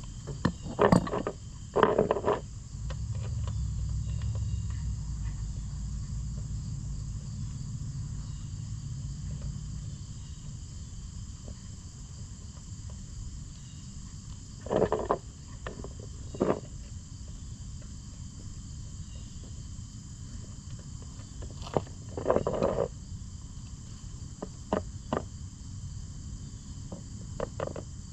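Scattered knocks and clinks of hand tools at a motorcycle's oil drain plug as it comes out, over a steady chirping of insects. The knocks are loudest in the first couple of seconds and come again about halfway and three-quarters through.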